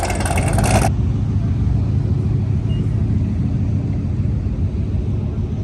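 Holden Commodore's engine running with a low, steady drone and road rumble as the car drives. For about the first second a loud hiss covers it, then it cuts off abruptly, leaving the low rumble.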